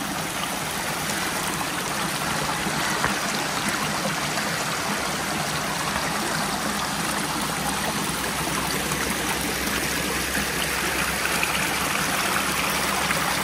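A stream running steadily, a constant even rush of water.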